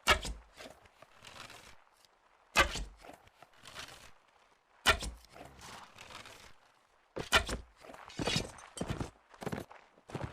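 Four sharp thumps about two and a half seconds apart, with rustling and scuffing between them that grows busier after the last thump.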